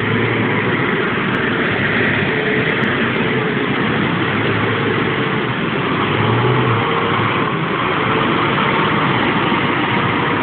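1999 Kia Sportage's engine running at low revs as the 4x4 crawls through a mud hole, a steady drone that swells slightly about six seconds in.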